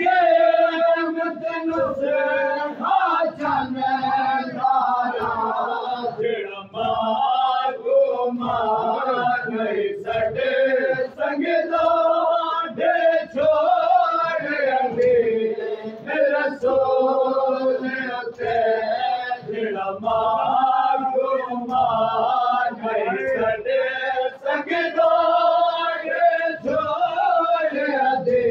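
Group of men chanting a noha, a Muharram lament, together in a loud sustained chorus. Hands strike chests in matam, a steady beat about once a second under the singing.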